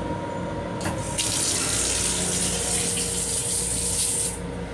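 Restroom faucet of an LIRR M7 railcar running into the sink. A short click comes just before the water starts about a second in, and the water stops shortly before the end, over the low steady rumble of the train.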